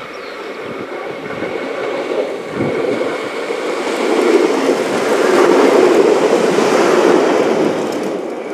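ÖBB class 5047 diesel railcars, a two-car set, running past close by. The engine and the wheels on the rails build up as the train approaches, are loudest as it passes beneath, and ease off a little near the end as it moves away.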